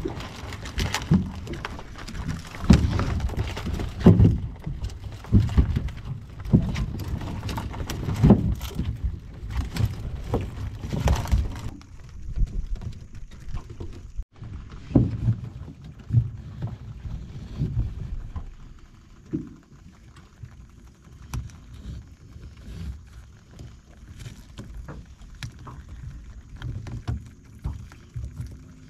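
Work noise aboard a small boat: irregular knocks and thumps over a low rumble of water and wind. It is louder for the first twelve seconds or so, then quieter, with scattered light knocks.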